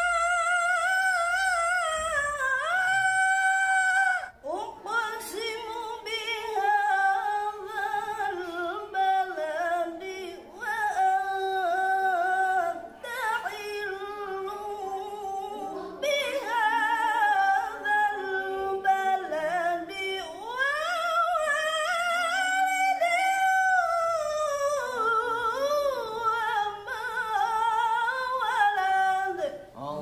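A woman reciting the Qur'an in tilawah style, unaccompanied, in a high voice with long, ornamented held notes that waver in pitch. She breaks off briefly for breath about four seconds in and a few times after.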